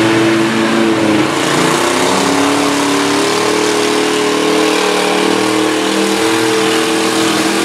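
Engines of demolition-derby pickup trucks running loudly, their pitch shifting up and down early on and then holding steadier as the trucks drive around.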